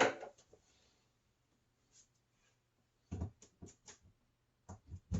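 A few short clicks and knocks from handling the Skil 1825 router and its power cord, in a cluster about three seconds in and another near the end; the router's motor is not running.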